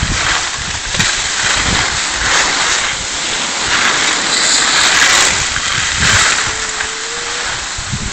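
Skis scraping and hissing over hard-packed, tracked snow, swelling and easing every second or so as the skiers turn, mixed with wind rushing over a moving phone microphone.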